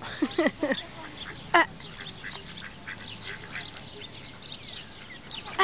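Mallard ducklings peeping, many faint high chirps, with a few short quacks from the adult mallards in the first two seconds.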